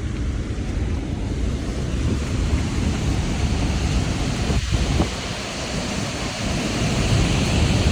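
Loud, steady rush of water cascading over a dam spillway, with wind buffeting the microphone.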